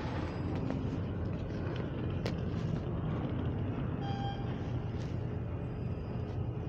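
Steady low rumble of a train idling at a station platform, with a short beeping tone about four seconds in.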